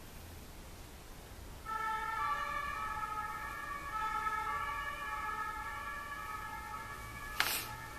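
A siren-like sound of steady tones switching back and forth between two pitches starts about two seconds in and holds through the rest. A short sharp noise near the end is the loudest moment.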